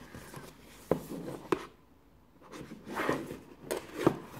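Cardboard box being turned over and handled: fingers rubbing and sliding on the card, with three sharp knocks as it is shifted against the desk.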